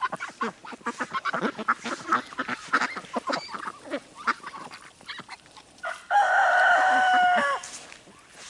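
Domestic ducks calling softly while they forage, then about six seconds in a rooster crows once: a loud call held for about a second and a half that drops in pitch at the end.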